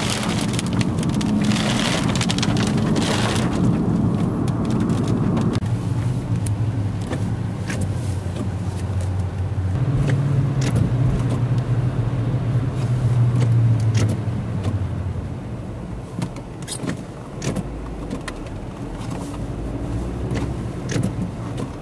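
Car cabin noise: a steady low engine and road hum, with scattered raindrop ticks on the glass. A louder hiss of rain or wind fills the first few seconds.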